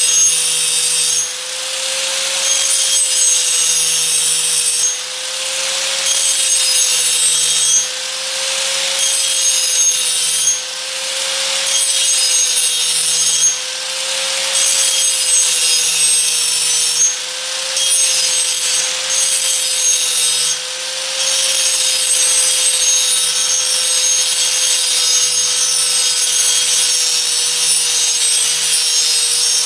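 Electric grinder sharpening a steel garden tool: the motor hums steadily while the abrasive grinds against the metal with a dense rasping hiss. The grinding drops off briefly every few seconds as the tool is eased off the blade, and the motor runs on.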